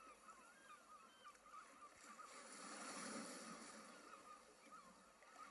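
Faint birds calling, many short cries that glide up and down in pitch, over a steady hiss.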